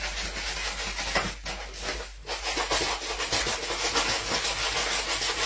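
Cat litter granules scraping and rustling in a plastic litter tray as a small dog digs and rolls in it, in a quick run of scratching strokes over a low steady hum.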